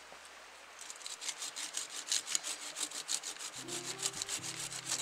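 Hand saw cutting wood in quick, even strokes, starting about a second in. Background music comes in underneath about three and a half seconds in.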